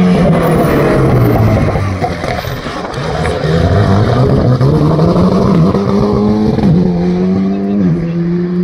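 Alpine A110 rally car's engine passing close. The revs drop as it slows for the bend, then climb as it accelerates away, with the pitch stepping back at two or three gear changes near the end.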